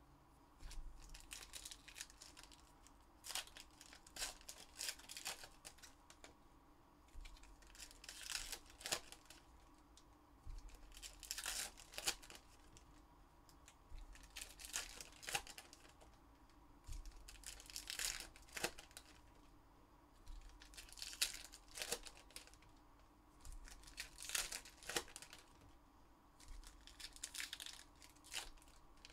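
Upper Deck Goodwin Champions trading-card pack wrappers being torn open and crinkled, in short rustling bursts every second or two.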